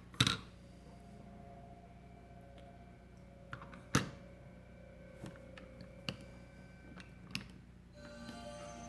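Sharp, separate clicks from a Smok GX350 box mod being handled and pressed, a second or so apart, the loudest about four seconds in.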